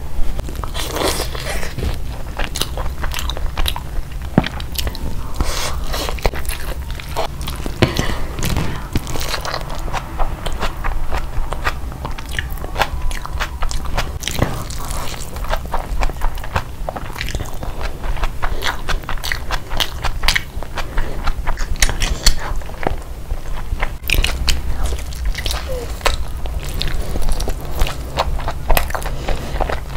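Close-miked eating: chewing and biting into chicken and biryani rice, a dense run of short clicky mouth noises, over a low steady background hum.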